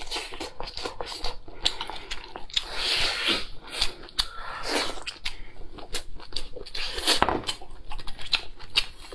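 Close-miked eating sounds of someone chewing cooked lobster meat: wet mouth clicks and smacks, with several louder breathy rushes in between.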